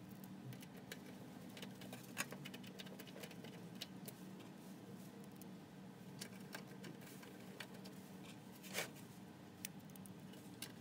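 Faint clicks and ticks of a small hand screwdriver turning screws into a computer power supply through the steel case, with a couple of sharper clicks, one about two seconds in and one near the end.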